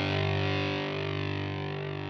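Outro music: a distorted electric guitar chord ringing out and slowly fading away.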